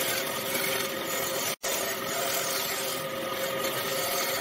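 A power tool working wood: a steady motor tone over a rough, rasping noise, broken by a momentary gap about one and a half seconds in.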